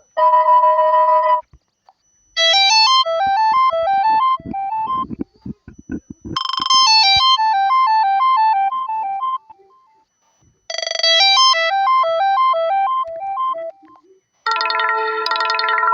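Android phone ringtones played one after another: a short electronic tone, then a bright synthesized ringtone melody of quick rising and falling notes that plays twice with a short gap between, then another ringtone of sustained chords starting near the end. Soft clicks sound under the first run of the melody.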